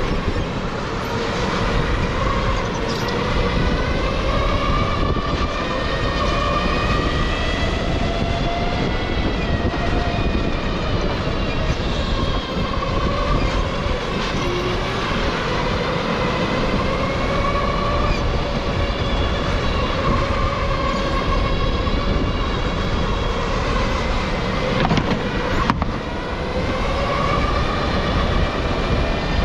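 Electric go-kart's motor whining as it is driven, the whine's pitch rising and falling again and again with speed, over a steady rushing noise.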